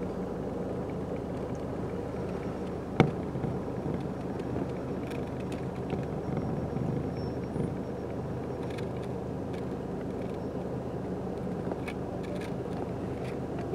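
Steady low hum of an idling vehicle engine against street noise, with one sharp click about three seconds in.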